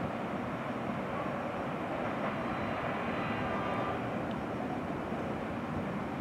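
Freight train of silo wagons rolling away along the yard tracks: a steady rumble of wheels on rail, with a faint thin metallic squeal between about one and four seconds in.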